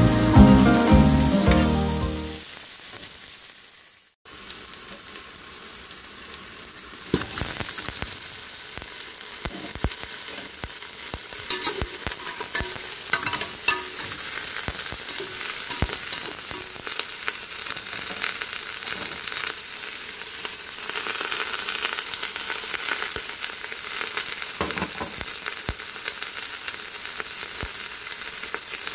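Background music fades out over the first few seconds. Then meat and spices sizzle and crackle in hot rendered meat fat in a metal pot, with occasional sharp knocks.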